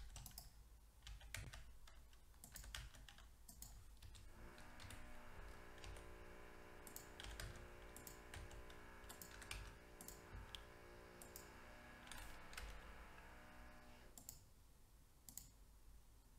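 Faint, scattered single clicks of a computer mouse and keyboard keys. From about four seconds in until shortly before the end, a faint steady hum made of several tones runs underneath.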